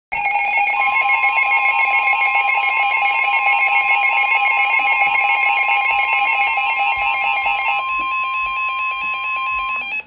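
Several NOAA weather radios sounding a Severe Thunderstorm Warning at once: loud, rapidly pulsing alarm beeps over the steady warning alarm tone of the weather radio broadcast. Some of the beeping stops about eight seconds in, and the steady tone cuts off just before the end, ahead of the voice message.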